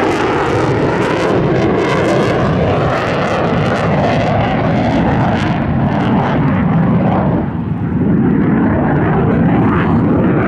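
Twin J79 turbojet engines of an F-4EJ Kai Phantom II in a loud, steady jet noise with crackle in the highs. After about six seconds the sound loses its high hiss and turns duller as the jet banks away.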